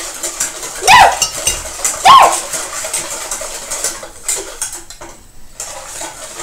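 Metal utensil clinking and scraping against a mixing bowl while egg whites are mixed for meringue, with a brief lull about five seconds in. Two loud, short squeals that rise and fall in pitch come about a second apart near the start.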